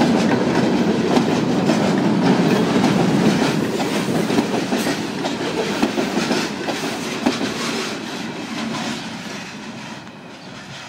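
Freight train's boxcars and covered hopper cars rolling past, their wheels clicking over the rail joints in a steady clickety-clack over a low rumble. The sound fades away over the second half as the last car goes by.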